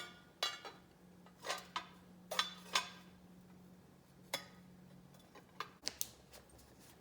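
Metal parts of a Mode65 keyboard case clinking and knocking as they are handled and set down: about ten sharp, irregular clinks with a brief ring.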